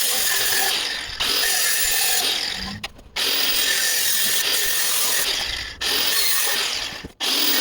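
A power tool cutting through an exhaust pipe and muffler tip, a steady hissing cut that runs in four stretches with brief breaks between them.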